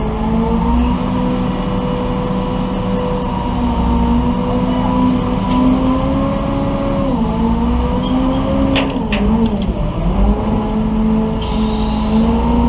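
An engine running at high, steady revs, its pitch sagging about seven seconds in and dropping further a couple of seconds later before climbing back, with a few sharp knocks during the dip.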